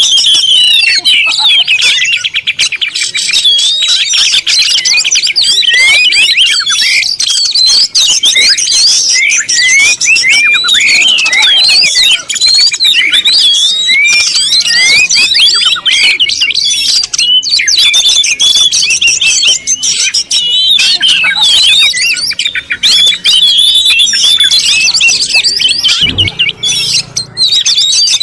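Many small birds chirping and calling at once: a dense, continuous chatter of overlapping high chirps.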